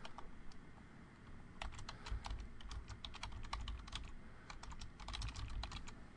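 Typing on a computer keyboard: a quick run of keystrokes starting about a second and a half in, a brief pause, then a second run.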